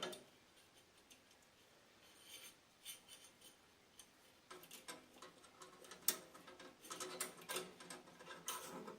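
Faint, scattered clicks and light metallic taps of a lever and its linkage being handled and tried in place on a snowblower. They are mostly in the second half, with a few sharper clicks near the end.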